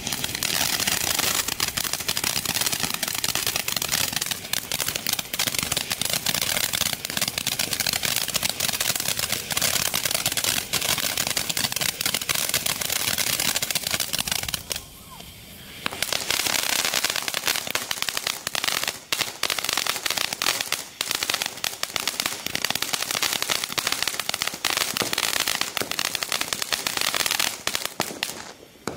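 Joy Fireworks JYF101 Four Seasons fountain firework spraying sparks with a loud, dense hiss and crackling. It stops for about a second midway, starts again, and cuts off near the end.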